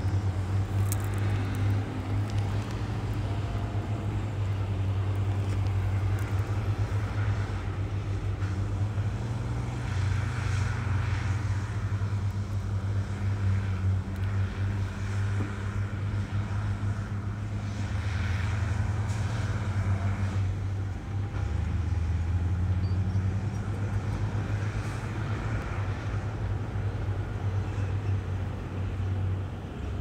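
Heavy diesel engines of earthmoving machines running steadily with a deep low rumble, the engine speed shifting up and down a few times.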